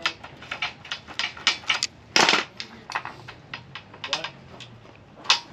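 Irregular small metallic clicks and taps of hand tools on the cut end of a wire rigging cable, with one short louder scrape about two seconds in. The cable end is being cleaned up so the Sta-Lok terminal's nut will slide over it.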